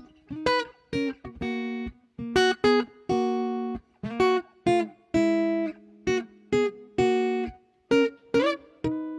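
Acoustic guitar playing a song's instrumental intro: short picked chords and single notes with brief gaps between them, a few notes sliding in pitch.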